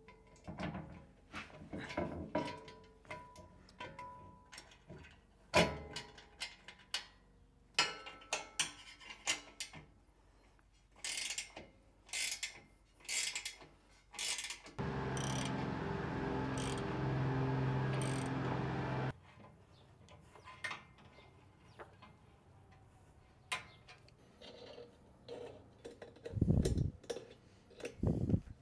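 Hand tools clicking and knocking against a steel trailer frame as a cattle drinking-bowl bracket is bolted on, with ratchet-like clicking. Midway a steady hum with shifting tones runs for about four seconds, and near the end come a few dull thumps.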